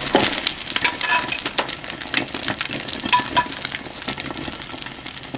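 Egg-soaked bread slices (French toast) frying in butter on a griddle pan: a steady sizzle full of small crackles and pops.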